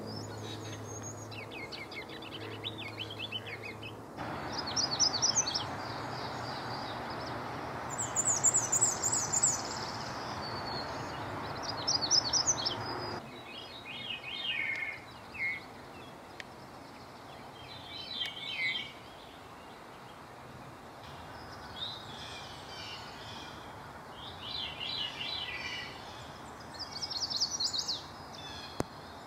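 Several songbirds singing in spring woodland: short, high-pitched song phrases one after another from different birds, over a steady background hum.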